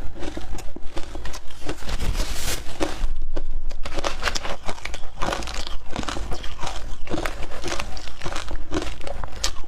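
Frozen matcha ice being bitten and chewed close to the microphone: a continuous run of crisp, crackling crunches.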